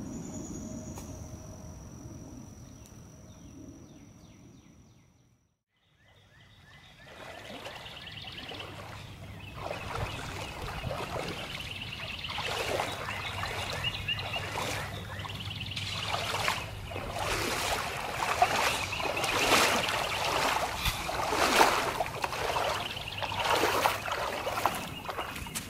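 A person wading through a shallow river, legs sloshing and splashing with each step, the splashes getting louder as the wader comes closer. Before this there are a few quieter seconds that fade into a brief silence.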